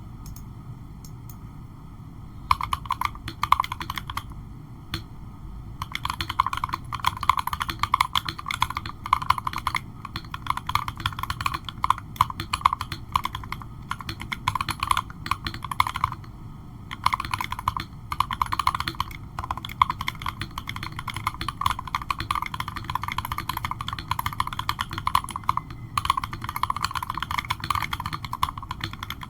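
Typing on an MK870 mechanical keyboard kit fitted with Ruben Tomcat switches: rapid runs of keystrokes that start about two and a half seconds in, with a single keypress around five seconds and short pauses between runs.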